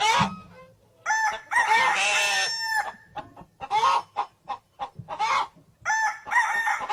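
Rooster crowing: a long crow about a second in, followed by shorter calls and clucks, then another crow near the end.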